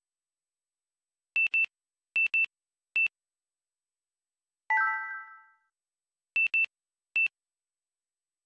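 Camcorder menu beeps as its buttons are pressed. Short, high electronic beeps come two at a time, then singly. About halfway through there is one chime of several notes struck together that fades out in about a second, and then two more beeps and a single.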